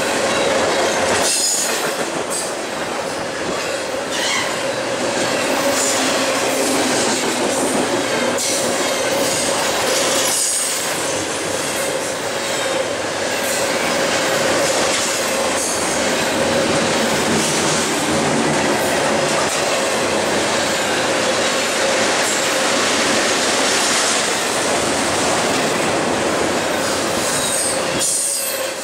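Double-stack container train rolling past at speed: a steady loud rush of steel wheels on rail, with a steady whine running through it and a few brief dips in the noise.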